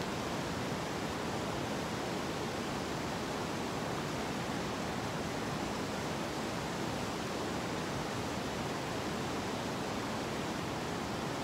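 River current rushing over rocks: a steady, even wash of moving water.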